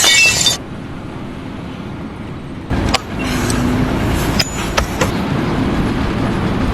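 Steady motor-vehicle rumble, with a short loud burst of noise at the start and another about three seconds in.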